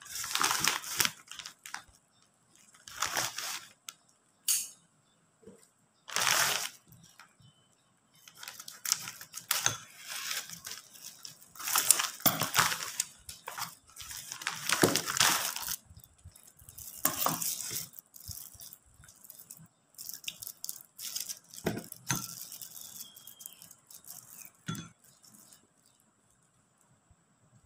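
Hands rolling and folding thin popiah wrappers on a ceramic plate: irregular rustling and crinkling in short bursts with quiet gaps between them, and a few light clicks.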